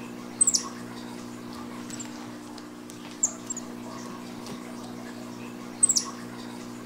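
White-faced capuchin monkey giving short, high-pitched squeaks, three times a few seconds apart, each a quick falling chirp. Under them runs a steady low hum.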